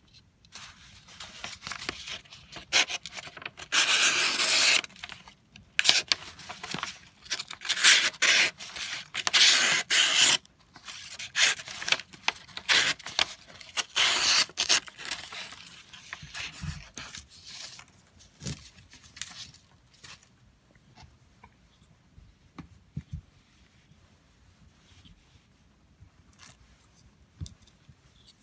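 Hitachi Musashi electrician's knife slicing through sheets of calendar paper in a run of scraping, tearing cuts through the first half, then only light scrapes and taps of handling.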